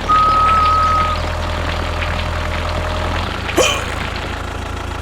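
A small engine running with a steady low hum. A whistled note is held for about the first second, and a short rising squeak comes about three and a half seconds in.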